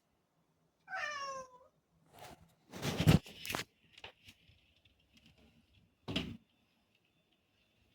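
A black domestic cat gives one meow about a second in, falling in pitch: a call to have a door opened. Loud knocking or thumping noises follow around three seconds and six seconds in.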